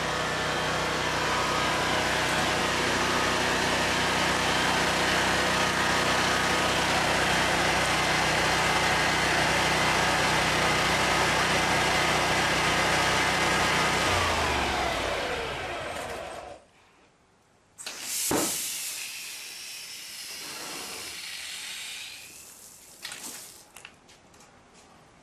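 The Honda petrol engine of a high-pressure drain jetter runs steadily under the hiss of the water jet. About 14 seconds in it winds down and stops, falling in pitch. After it stops come a sharp knock, a few seconds of hiss, and a few clicks near the end.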